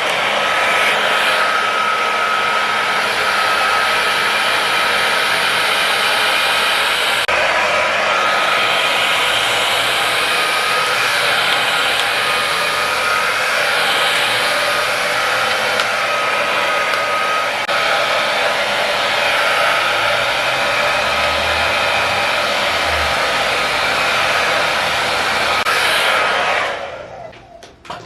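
Handheld hair dryer blowing steadily, a rushing noise with a thin steady whine, switched off near the end.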